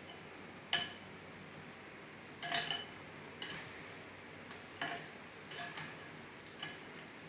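A spoon stirring uncooked oatmeal mixture in a bowl, clinking against the bowl about six times at uneven intervals, each clink ringing briefly.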